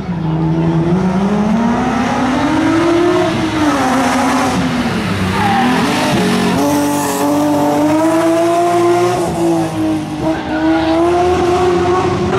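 A BMW M3 E36 rally car's straight-six engine at full throttle, driving past. Its note climbs and drops repeatedly with gear changes and lifts off the throttle through the turn.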